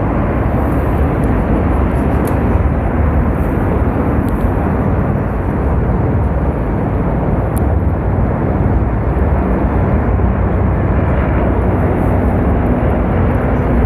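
Military aircraft of the parade flypast passing overhead: a loud, steady rumbling noise that holds level throughout.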